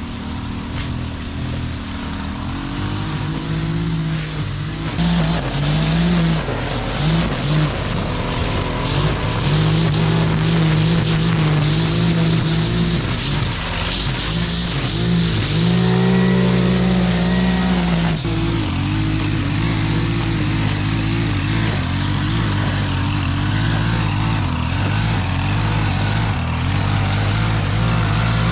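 Gas string trimmer running, its engine pitch rising and falling with the throttle as the line cuts through tall, thick grass. The cutting hiss grows louder about five seconds in.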